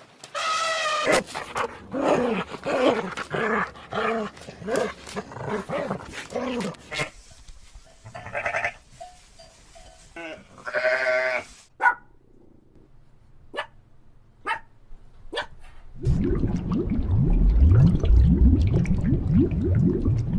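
A series of animal calls from different farm animals, one after another: a run of short pitched calls through the first seven seconds, a few more calls after that, then scattered clicks, and low rumbling noise over the last four seconds.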